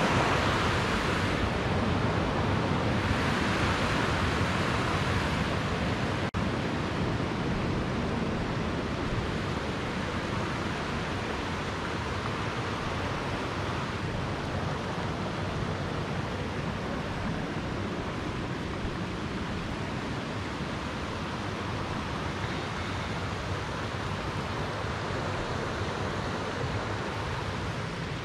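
River rapids rushing over rocks, a steady noise, somewhat louder in the first few seconds and then easing a little. A very brief dropout about six seconds in.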